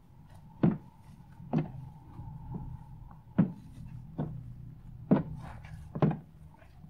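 Hands pressing and kneading a large mound of fluffy shaving-foam slime on a wooden table, with a short squish at each press, about once a second.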